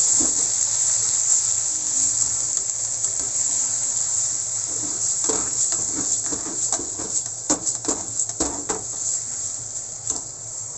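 Squid sizzling in hot oil in a non-stick frying pan as it is stir-fried. A spatula clicks and scrapes against the pan several times in the second half, and the sizzle dies down gradually toward the end.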